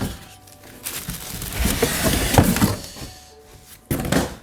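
Grill parts being handled and unpacked from a cardboard box: irregular rustling and scraping, with a short thunk near the end.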